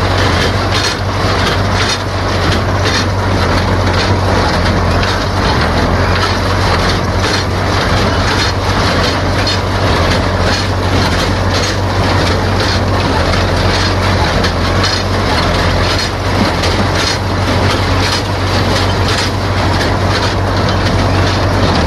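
Tractor engine running steadily while pulling a small square baler, with the baler's mechanism knocking in a steady, even clattering rhythm over the engine hum.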